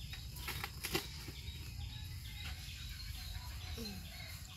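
Garden ambience with faint repeating chirps high in pitch, a few sharp clicks about a second in, and a short, low, falling voice-like sound near the end.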